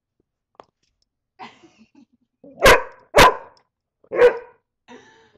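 Dog barking: three sharp, loud barks in the second half, the first two close together and the third about a second later, at a beetle she is fighting.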